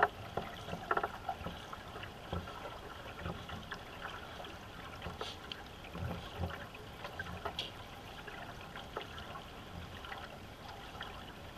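Racing canoe underway under paddle: paddle blades dipping and pulling through the water about once a second, with water trickling and splashing along the hull and a single sharp knock at the very start.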